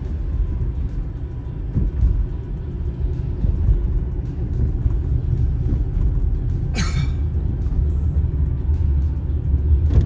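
Steady low road rumble of a car driving, with background music. A short falling chirp comes about seven seconds in.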